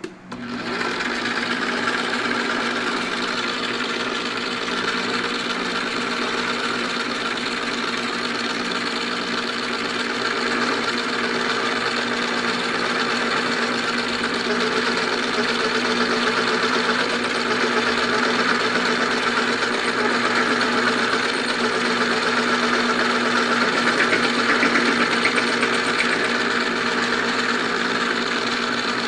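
Manrod MR 301 bench lathe switched on and running while it machines a small workpiece, a steady motor hum with a continuous mechanical whir over it.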